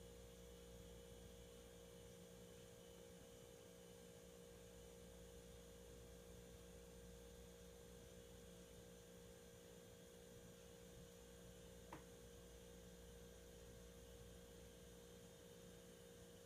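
Near silence: a faint, steady electrical hum of room tone, with one small click about twelve seconds in.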